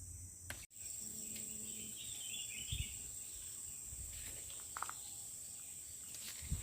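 Steady high-pitched drone of insects, with a few faint, short bird chirps around two seconds in and again near five seconds.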